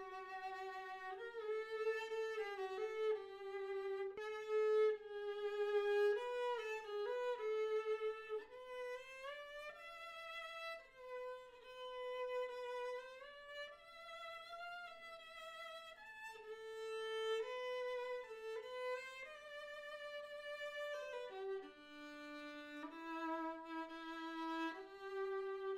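Solo violin strung with Evah Pirazzi Gold strings (silver-wound G, Stagg E) playing a slow melody of held notes with some sliding shifts between them. It drops to lower notes near the end.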